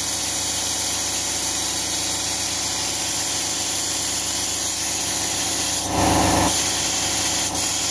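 Paddleducks 'Bogstandard' model steam engine running steadily: a continuous exhaust hiss with fast mechanical chatter. It is freshly repaired and still a little tight, running in. A brief louder burst comes about six seconds in, as a hand works the engine's valve lever.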